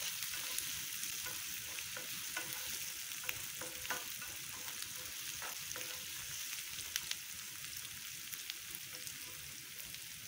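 Chopped onions and peanuts sizzling in oil in a non-stick frying pan, with a steady hiss. A wooden spatula stirs them, with scattered scrapes and taps against the pan.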